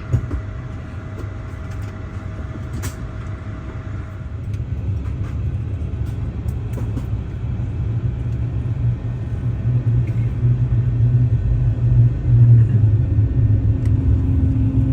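Low rumble of an Airbus A350-900 heard from inside the cabin on the ground before takeoff, growing steadily louder.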